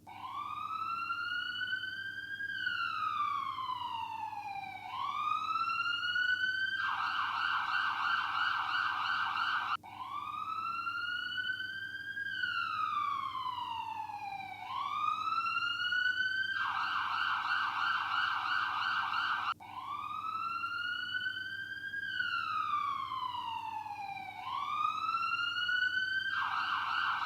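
Electronic ambulance siren cycling through its patterns: a slow wail that rises, falls and rises again, then a fast warble. The cycle restarts abruptly about every ten seconds, three times over.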